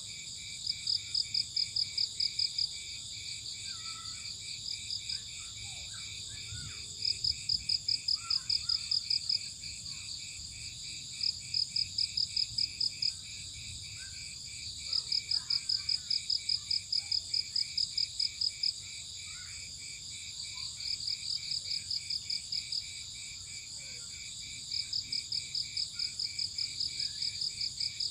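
Night chorus of crickets: a steady high-pitched shrill from many insects, with one louder pulsed trill that comes in bouts of about two seconds, six times, a few seconds apart. Faint, lower scattered calls sound underneath.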